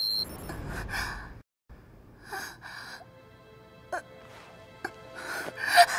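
A cartoon smartwatch's single high electronic beep at the start, an error tone for a failed connection. Then soft, dark background music with held notes, and a faint sigh near the end.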